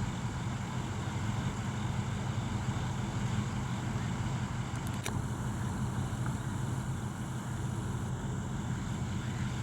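Truck engine running steadily, a low, even hum with no change in pitch. A single sharp click about five seconds in.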